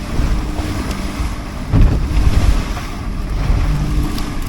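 Wind buffeting the microphone over rough seas sloshing around a small boat, with a louder low thump a little under two seconds in.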